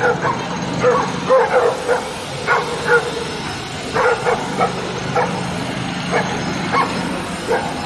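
Stray dogs barking in quick, irregular runs of short, sharp barks, thinning out toward the end.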